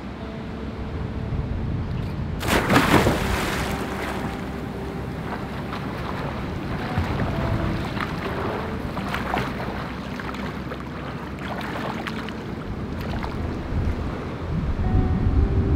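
Outdoor ambience: a steady rush of wind and surf with a low rumble, broken by brief water splashes from a person swimming in a pool. The biggest splash comes about two and a half seconds in, and smaller ones follow now and then.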